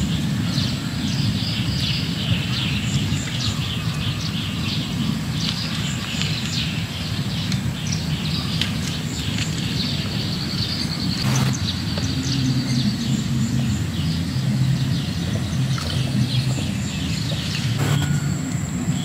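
Rural outdoor ambience: many small birds chirping, with a thin high insect-like drone, over a steady low rumble. Two sharp knocks stand out, one about halfway through and one near the end.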